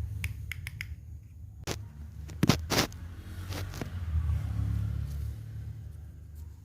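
Sharp clicks and knocks from small objects being handled, the loudest a pair about two and a half seconds in, over a low steady rumble.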